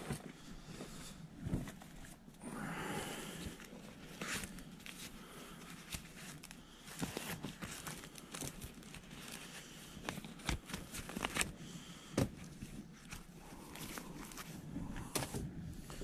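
A bag being handled and opened by hand, rustling and crinkling, with scattered small clicks and knocks of items being moved.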